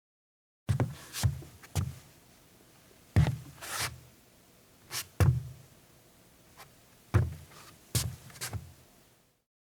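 Footsteps of a woman in sneakers on a deck: soft heel-and-toe thumps with light scuffs, in short runs of two or three steps with pauses between. They start about a second in and stop shortly before the end.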